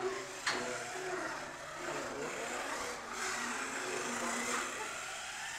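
The 12-turn 550 electric motor of a Losi Strike 1/10 short course RC truck whining as it is driven, its pitch rising and falling with the throttle, with a sharp knock about half a second in.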